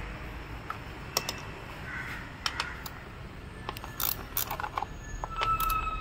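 Scattered clicks and short metallic knocks of a ratchet wrench and hands working on the ignition coils of a Maruti Suzuki Baleno's engine, while the coils are being taken out to swap cylinders 3 and 4 and see whether the misfire follows the coil.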